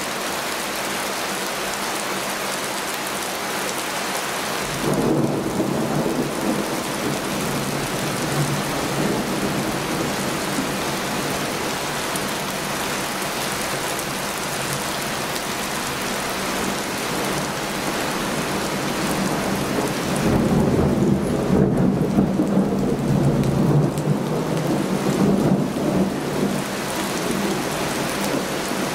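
Heavy rain falling steadily, with low rumbles of thunder: a short one about five seconds in and a longer, louder roll from about twenty seconds in.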